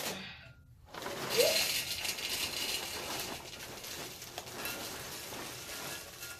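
Apple Jacks cereal poured from the box into a glass bowl: a dense, steady patter of small pieces landing on the glass and on each other, starting about a second in.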